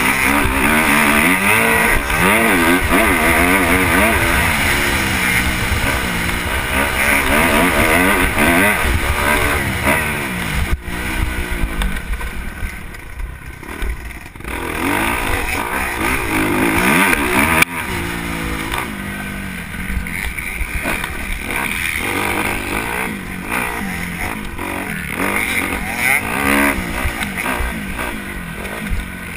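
Dirt bike engine revving up and down over and over as it is ridden, the pitch rising and falling every second or so. It eases off for a couple of seconds about twelve seconds in, then picks up again, with a sharp knock twice along the way.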